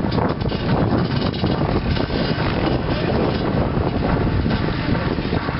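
Wind buffeting the microphone over the steady running of enduro motorcycle engines climbing a hill.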